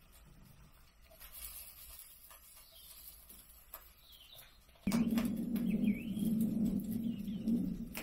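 A few faint chirps and small clicks over quiet surroundings, then about five seconds in a loud, steady low rumble cuts in suddenly and keeps going.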